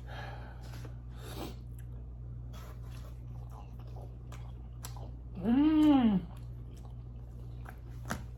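Close-up chewing and biting of pizza: soft wet mouth noises and small clicks over a steady low hum. About halfway through comes a brief, loud hummed 'mmm' whose pitch rises and then falls.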